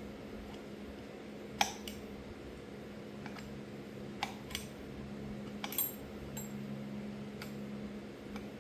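Scattered light metallic clicks and clinks of small distributor parts and hand tools being handled, about eight in all, the sharpest about a second and a half in, over a steady low hum.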